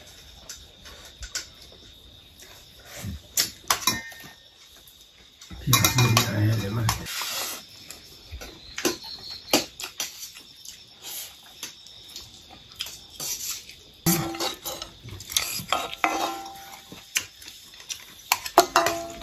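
Stainless steel plates and bowls clinking and a ladle scraping against a black iron wok as chicken curry is served out, in scattered sharp knocks and scrapes. One longer, louder scraping stretch comes about six seconds in.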